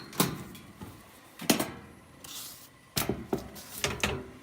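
A series of sharp knocks and clunks, about six in four seconds, like hard objects or panels being handled.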